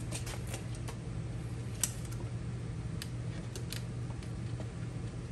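Scattered light clicks and ticks of a metal tape measure being handled and drawn out against the plastic telescoping handle of a rolling toolbox, with one sharper click about two seconds in, over a steady low hum.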